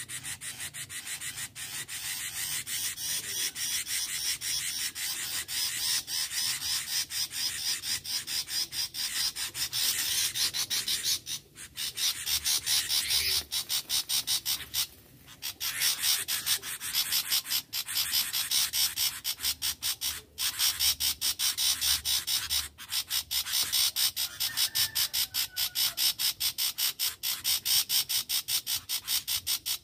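Insects chirring, most likely cicadas: a fast, steady rasping pulse that pauses briefly twice.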